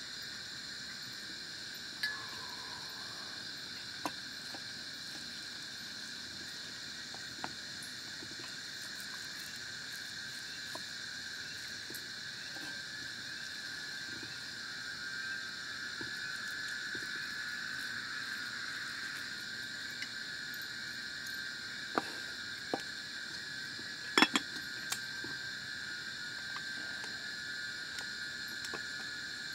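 Steady chorus of night insects, crickets among them, in high continuous tones. Scattered clinks and knocks of a wooden rice paddle on a metal pot and an enamel plate as rice is served, the loudest cluster a few seconds before the end.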